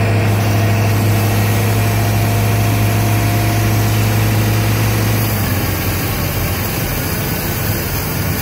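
Carbureted inboard boat engine running steadily at raised throttle with a strong low hum, easing slightly in speed and loudness about five seconds in. It is in the fogging stage of winterizing, with fogging oil being sprayed into the carburetor.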